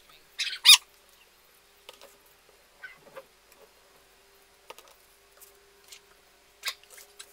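Hands handling craft materials on a paper layout: a brief loud squeaky rasp about half a second in, then scattered light taps and clicks as a plastic glue bottle is picked up, squeezed and set down. A faint steady hum sits underneath.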